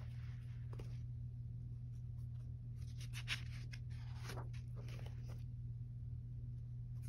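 Paper pages of a paperback coloring book being turned, rustling in a few short bursts, mostly in the middle, over a steady low hum.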